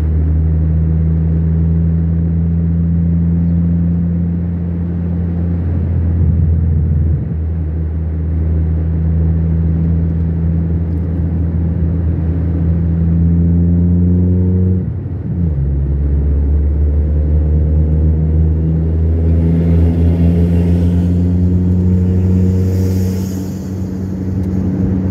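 Car engine and tyre noise heard inside the cabin, a steady low drone. About halfway through, the engine pitch climbs, breaks briefly as if through a gear change, then climbs again as the car accelerates.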